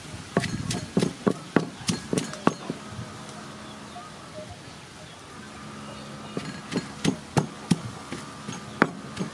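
Wooden pestle pounding vegetables in a wooden mortar, as papaya salad is made: a quick run of about nine dull thuds, a pause of a few seconds, then another run of strikes.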